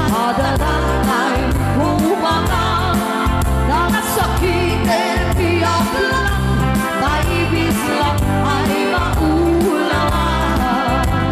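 Two women singing a song together into microphones through a PA, over live keyboard band backing with a steady, repeating bass beat.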